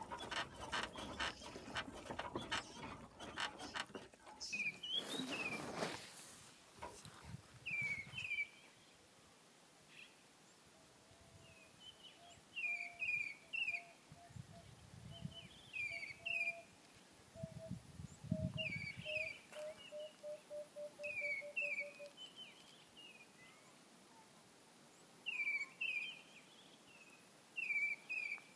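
For the first six seconds or so, a close, dense run of short sounds from a herd of African buffalo. Then birdsong: short two- or three-note chirps repeating every second or two. Through the middle, a bird's series of lower hooting notes that come faster and faster before stopping.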